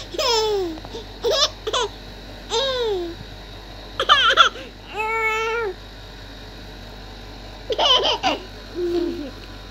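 Baby giggling and babbling: short, high laughs and squeals that slide down in pitch, one held note about halfway, then a pause of a couple of seconds before a few more laughs near the end.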